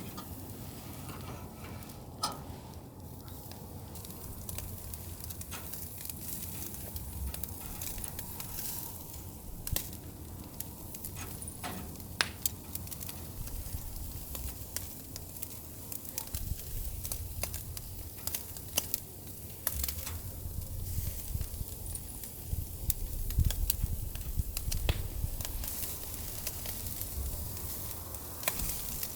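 Korean beef (hanwoo) sizzling on a charcoal grill, with sharp crackles and pops scattered throughout. A low rumble runs underneath, stronger in the second half.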